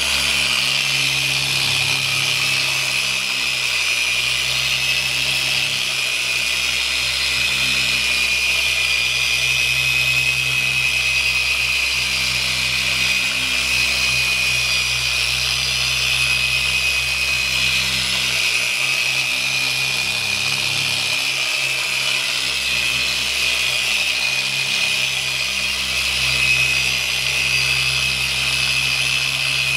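Electric orbital polisher running steadily with a high whine, its soft foam pad buffing ultra-fine polish on a carbon fiber windshield: the final polishing stage.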